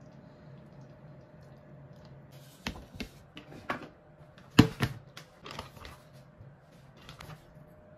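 Light knocks and clatters of kitchen things being handled on a countertop, a handful of sharp taps, the loudest about four and a half seconds in as a white plastic cutting board is set down.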